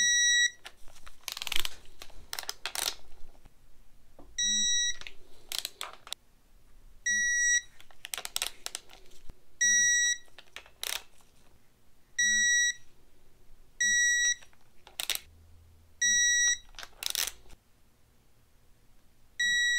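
Digital torque wrench beeping, eight short high beeps a few seconds apart, each signalling that an oil pump bolt has reached the set 20 ft-lb. Short metallic clicks and rattles come between the beeps.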